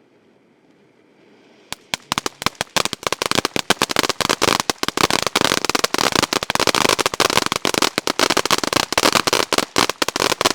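A ground firework fountain letting off a fast, dense string of sharp crackling reports, several a second. After a faint hiss, they begin suddenly about two seconds in and go on without a break.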